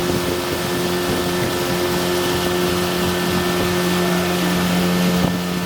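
Yamaha 15 hp outboard motor driving a longboat, running at a steady, unchanging speed with a constant hum over a steady hiss.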